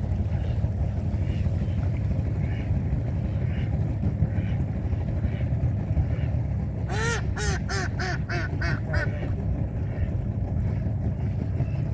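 Steady low rumble of a boat motor, with a duck quacking a quick run of about seven quacks partway through.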